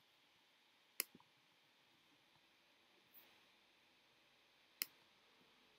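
Two sharp computer mouse clicks, one about a second in and one near the end, over near silence.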